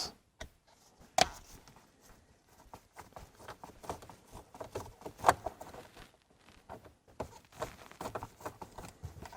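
Faint, scattered clicks and light ticks of a T15 Torx bit driver backing out the screws of a plastic steering column cover.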